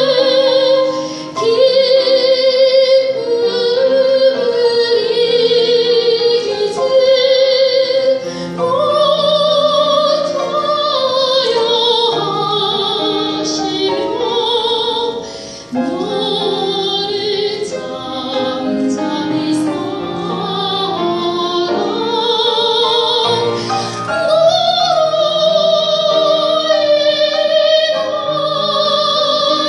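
A coloratura soprano singing in operatic style, with long held notes and wide vibrato, accompanied by grand piano.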